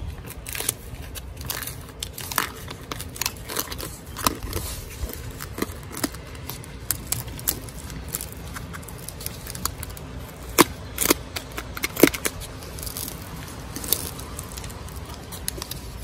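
Foam backer rod being pressed by hand into a crack in a cinder block wall: scattered scrapes, crackles and clicks of foam and fingers against the rough stucco. A few sharper clicks come about two-thirds of the way through.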